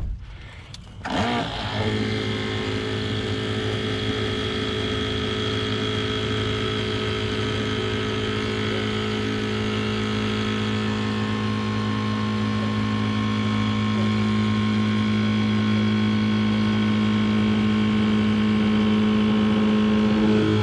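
HURST R 521 battery-powered hydraulic rescue ram running, its electric motor and pump giving a steady hum while the piston extends and pushes the car's roof up. The hum starts about a second in after a sharp click and grows slightly louder in the second half.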